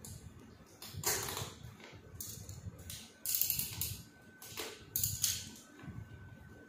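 Adhesive tape pulled off the roll in several short rips, the loudest about three seconds in, and pressed down along the edge of a vinyl banner.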